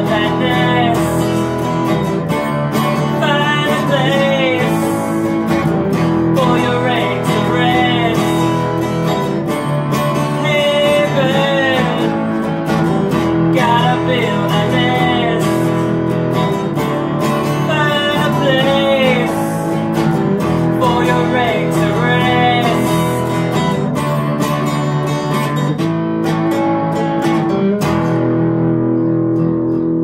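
Upbeat children's song with a strummed acoustic guitar and a man singing. Near the end the voice stops and the guitar plays on alone.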